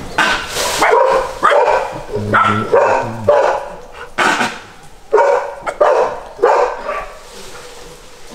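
Dogs barking repeatedly in short, sharp barks, coming in irregular bursts.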